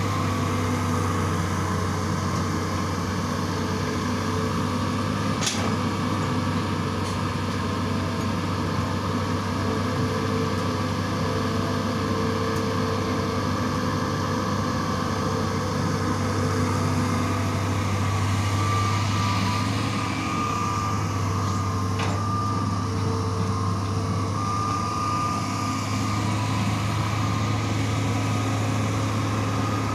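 Hitachi long-reach excavator's diesel engine running steadily under working load, with a hydraulic whine that comes and goes as the long arm digs and swings. Two sharp knocks, about five seconds in and again about twenty-two seconds in.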